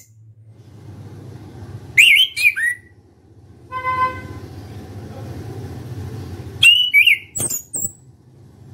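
Chestnut-capped thrush (anis kembang) singing loud, short phrases of sweeping whistled notes, in two bursts: about two seconds in and again near seven seconds.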